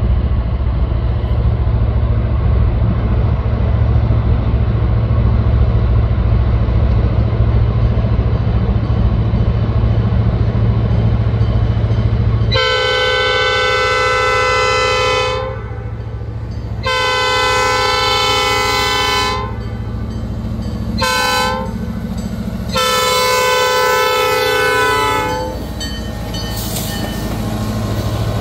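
An SD40-2 diesel locomotive's 16-cylinder two-stroke EMD engine rumbles steadily as it approaches. From a little under halfway in, its air horn sounds the grade-crossing warning: two long blasts, one short, then one long.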